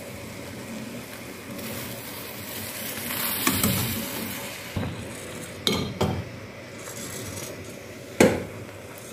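Flaxseeds and water boiling in a metal pot with a frothy bubbling hiss that swells for a couple of seconds, the seeds thickening into a gel. A steel spoon stirring the pot knocks against the metal four times in the second half.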